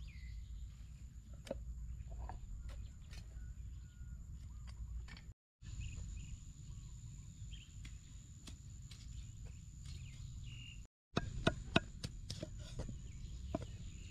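Cleaver chopping on a wooden tree-stump chopping block: scattered knocks at first, then a quick run of sharp knocks over the last few seconds. A steady low rumble and a faint high whine run underneath.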